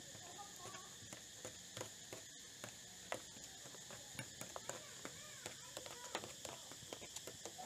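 Eating sounds: metal spoons and chopsticks clicking and scraping on a plastic tray, with chewing, as many small sharp clicks that come thicker in the second half. A steady high buzz runs underneath.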